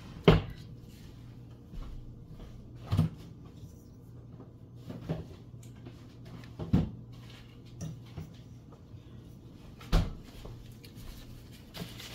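Someone rummaging in kitchen cupboards and drawers: scattered knocks and clunks, four louder ones a few seconds apart, over a faint steady low hum.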